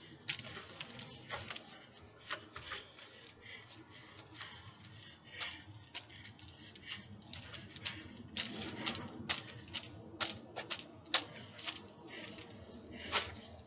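Irregular sharp clicks and taps of an LED hula hoop being spun around the body and caught and passed by hand, several a second, coming thickest and loudest in the second half.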